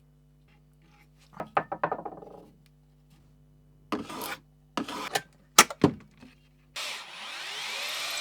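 A hand tool scraping across wood in short strokes: a quick run of several strokes about a second in, then three separate strokes. Near the end a power tool starts and runs steadily.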